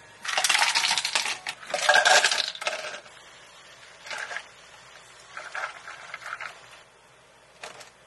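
Ice cubes dropped into two plastic cups: two loud bursts of clinking and rattling ice in the first three seconds. Quieter clinks follow as milk is poured over the ice.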